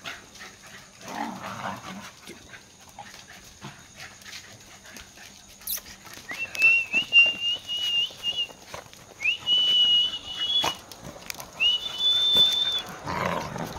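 Cocker spaniel whining, three long high-pitched whines of about two seconds each in the second half, each sliding up at the start and then held steady, as it greets its owner in excitement.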